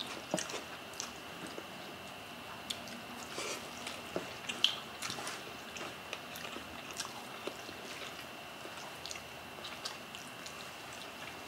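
Close-up eating sounds of people eating steamed fish with their fingers: quiet chewing, small scattered mouth clicks and soft squishes of fingers pulling at the flesh. A faint steady high-pitched tone sits underneath.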